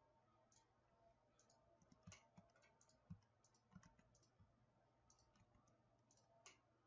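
Near silence with faint, irregular computer mouse clicks over a low steady hum. The loudest click comes about three seconds in.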